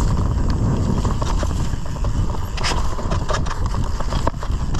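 Mountain bike riding fast down a rough dirt trail. Wind buffets the camera microphone in a constant low rumble, and the chain and frame rattle and knock over roots and bumps, with brush swishing past.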